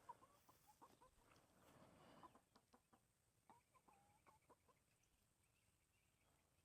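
Faint clucking of a small flock of domestic chickens: short, scattered calls, with a soft rustle in the first couple of seconds.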